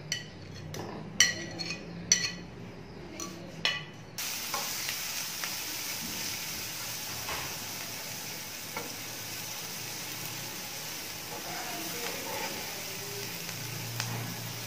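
Garlic paste sizzling in hot oil in a nonstick frying pan while a spoon stirs it. The first few seconds hold a handful of sharp clicks and scrapes as the garlic goes in; the steady sizzle starts suddenly about four seconds in.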